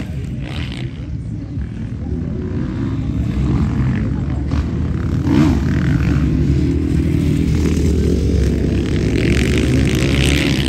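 Several motocross bikes racing, their engine notes overlapping and rising and falling as riders open and close the throttle, growing louder a couple of seconds in.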